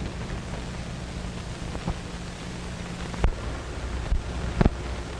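Steady hiss and low hum of an old film soundtrack, broken by a few sharp clicks, the loudest about four and a half seconds in.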